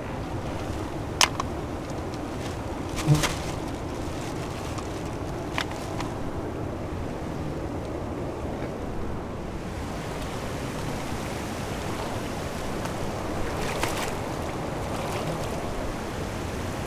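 Steady rush of flowing river water, with a few sharp clicks about one, three and five and a half seconds in.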